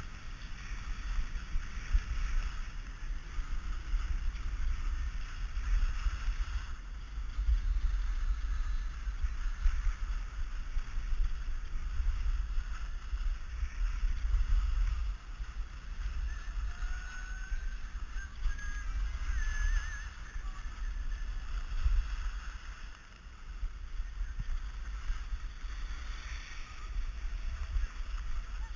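Skis sliding and carving over groomed snow with a steady scraping hiss, under a gusting wind rumble on the action camera's microphone from the downhill speed.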